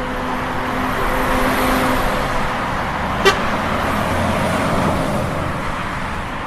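Busy highway traffic: vehicles running past in a steady rush of road noise. A vehicle horn sounds for about the first two seconds, and there is a short sharp click a little over three seconds in.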